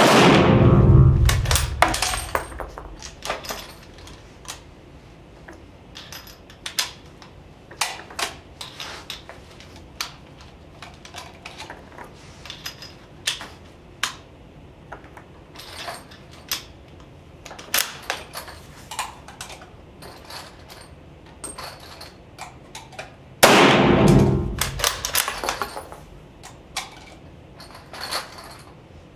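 Two shots from a Spanish Mauser FR8 bolt-action rifle in 7.62×51 NATO, firing reduced Trail Boss loads behind coated lead bullets. One shot comes at the start and one about 23 seconds later, each ringing out in the room for about two seconds. In between, the bolt is worked and there are metallic clicks of handling and reloading.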